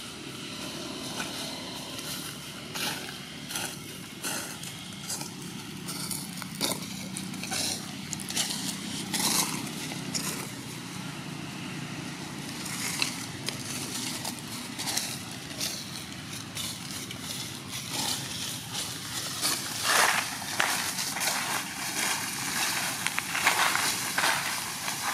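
Irregular crackling and rustling, busier in the second half, over a steady low background rumble.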